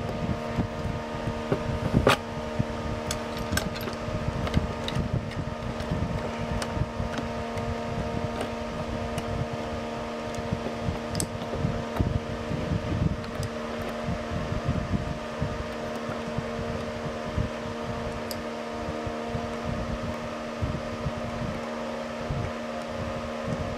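Steady mechanical hum like a running room fan, with scattered small clicks and knocks, the sharpest about two seconds in, as a screwdriver backs out the body screws of a Lionel model train tender and the tender is handled.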